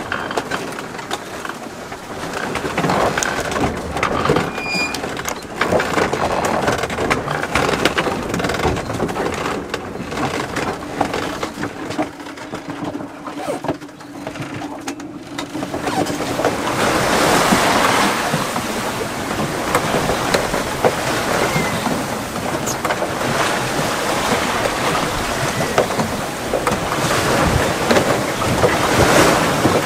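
Wind and waves rushing and splashing against a small sailboat's hull as it sails close-hauled into a choppy sea, with scattered clicks and knocks. The noise swells louder about halfway through and again near the end.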